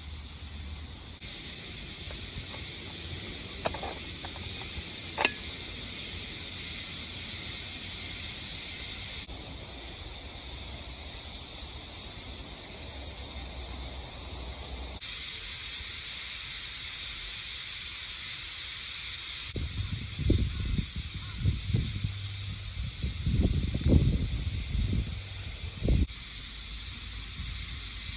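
Insects shrilling steadily in high, even tones, the sound changing abruptly several times. A run of low bumps and rumbles comes in over it near the end.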